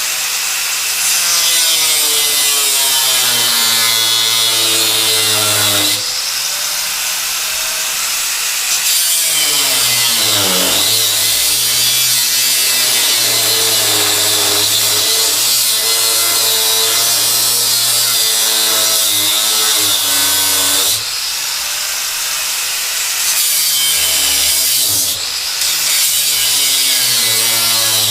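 Electric power tool cutting, its motor pitch sagging and recovering over and over as it bites in and eases off, with a steady hiss of the cut over it.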